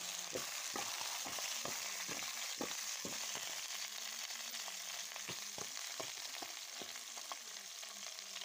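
Potatoes and onions frying in oil in a metal pot: a steady sizzle with frequent short clicks and pops. The sound cuts off abruptly at the end.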